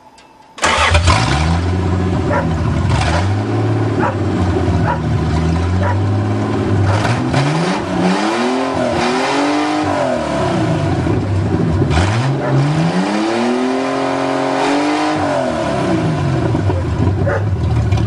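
1982 Toyota Cressida's fuel-injected engine running, back to life after water was blown out of its injection system. It starts sounding abruptly about half a second in, idles steadily, and is revved up and back down twice, around the middle and again about twelve seconds in.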